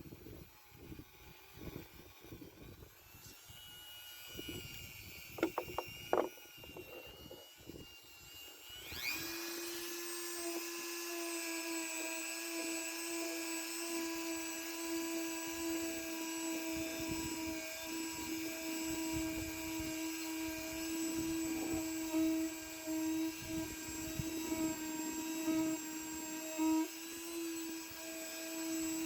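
Scattered knocks and scrapes of handling, then about nine seconds in a small electric power tool spins up with a quick rising whine and runs at a steady high speed.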